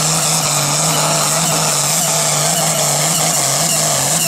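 Diesel engine of a modified farm pulling tractor running flat out under heavy load as it drags a weight-transfer sled, a loud, steady drone whose pitch wavers slightly.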